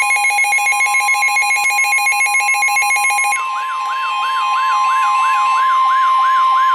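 Emergency Alert System alarm tones: a steady alert tone under a fast, buzzing, stepped electronic warble. About three and a half seconds in, the warble gives way to a siren-like sweeping tone that repeats about three times a second.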